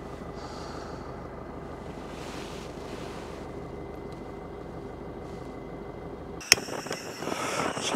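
Isuzu D-Max ute running steadily, a low rumble of engine and drivetrain heard from in or on the vehicle. About six and a half seconds in it cuts off abruptly with a click, giving way to quieter outdoor ambience.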